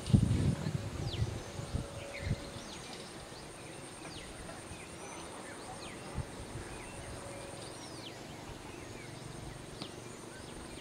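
Birds chirping: many short, high, falling chirps scattered throughout over a steady background hiss. A few low muffled thumps in the first couple of seconds, the loudest right at the start.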